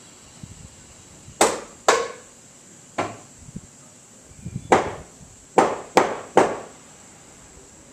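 Hammer blows on wood: seven sharp strikes at uneven intervals, each ringing briefly.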